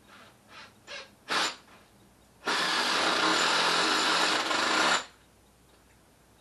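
Power drill running steadily for about two and a half seconds, starting and stopping abruptly, after a few short clicks and knocks of tools being handled.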